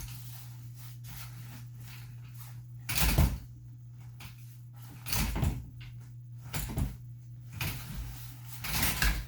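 Playpen frame being handled during assembly: its tubular rails and plastic joints knock and clatter in a series of irregular bangs, the loudest about three seconds in, as the rails are pushed and pulled to make them latch. A steady low hum runs underneath.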